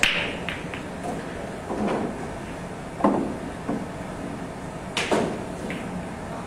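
Pool break in nine-ball: the cue strikes the cue ball into the racked balls with a sharp crack, followed by a clatter of balls colliding and hitting the cushions. Two more distinct knocks come about three and five seconds in.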